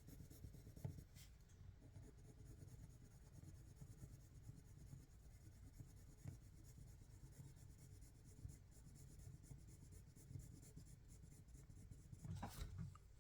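Faint, steady scratching of a Faber-Castell Polychromos colored pencil on paper as a swatch is shaded from dark to light, with a few light knocks near the end.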